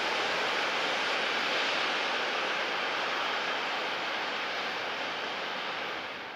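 Steady rolling noise of a long intermodal freight train's wheels on the rails as the wagons pass, slowly fading and dropping off near the end as the last wagon goes by.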